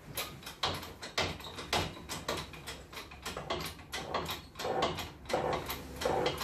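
Hydraulic shop press being pumped by its hand lever, a metallic clack with each stroke at about two a second, as the ram presses a half-shaft bearing into a swivel ball.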